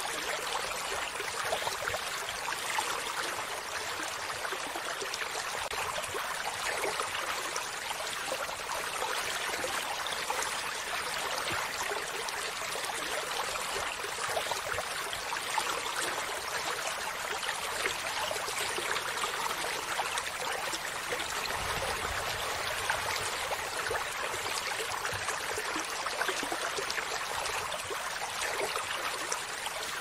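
Shallow stream trickling over rocks, a steady, even rush of water without a break.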